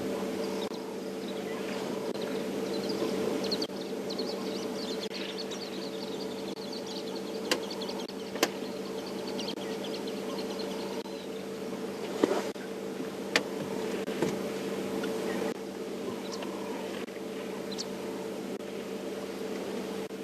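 Safari vehicle engine idling with a steady hum, broken by a few sharp clicks, with faint high chirping in the first few seconds.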